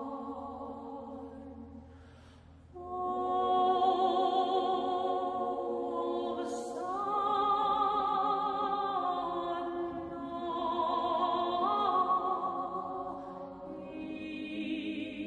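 Solo voice singing an Armenian hymn unaccompanied, holding long notes with wide vibrato. It breaks off briefly just before three seconds in, then starts a new phrase that steps up and down between notes.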